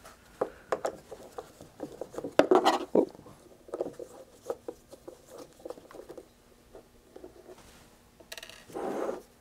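Screwdriver working the small screws out of a radio's metal bottom cover: irregular small clicks and scrapes of the tip and screws against the metal case, with a louder stretch of scraping about two and a half seconds in.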